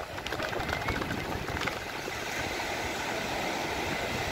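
Steady rumbling noise of small waves breaking on a sandy shore, with wind on the microphone.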